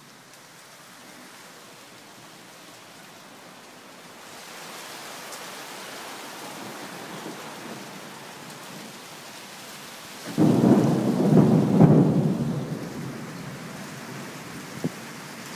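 Steady rain hiss that grows louder about four seconds in, then a sudden loud clap of thunder about ten seconds in, rumbling for a couple of seconds before it fades.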